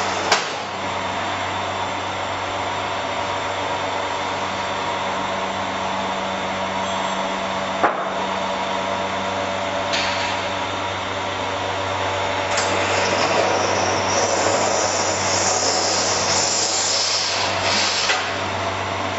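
Nozzle-type external vacuum packing machine running: its vacuum pump hums steadily while it draws air out of a foil bag held on the nozzle, with sharp clicks just after the start and near the middle. About two-thirds through, a louder hiss of rushing air joins in and ends with another click near the end.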